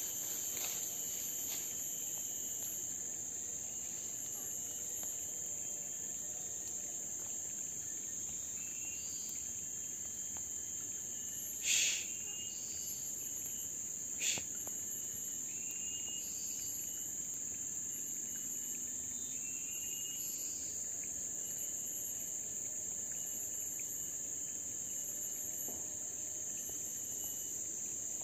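Steady high-pitched insect drone, with faint short chirps. Two sharp clicks stand out, about twelve and fourteen seconds in.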